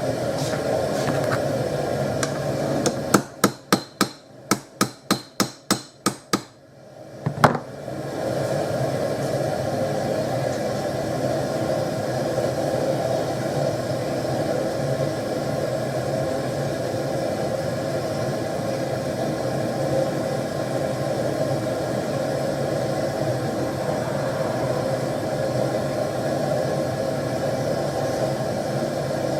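Gas forge burner running steadily. About three seconds in, it is broken by a quick run of about a dozen hammer blows on metal, around three a second, then one more blow. The burner noise drops away during the blows and returns about eight seconds in.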